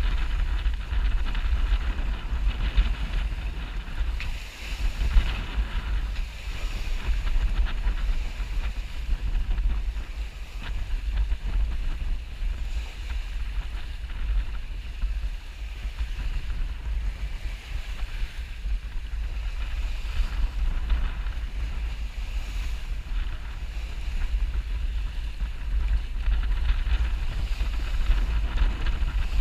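Wind buffeting the microphone in an uneven, gusty rumble, over the hiss of water rushing past the hull of a sailboat under way.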